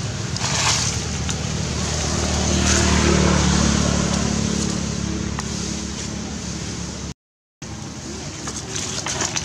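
Motor vehicle engine running close by, a low hum that swells to its loudest about three seconds in and then slowly fades. The sound drops out for a moment about seven seconds in.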